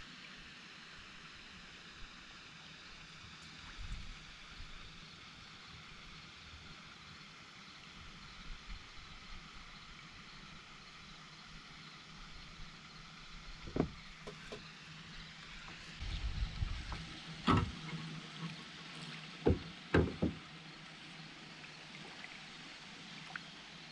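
Quiet steady background hiss on the water, broken in the second half by a few sharp knocks against a plastic fishing kayak's hull, two of them close together, with a low rumble just before.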